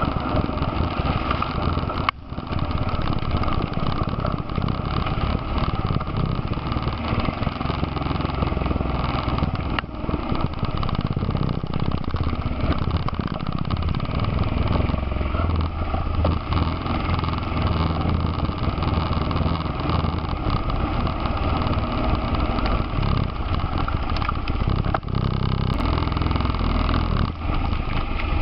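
ATV engine running steadily under way, heard from on board the quad, with a few brief knocks along the way.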